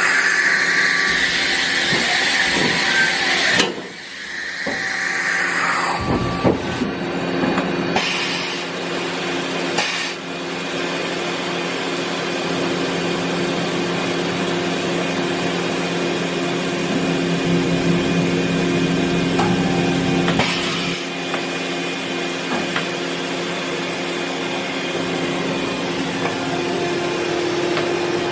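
Okuma MB-5000H horizontal machining center running under power: a steady machine whine and hum, with the spindle's pitch rising and falling during the first few seconds. Short bursts of hiss come about a third of the way in, shortly after that, and again past the middle.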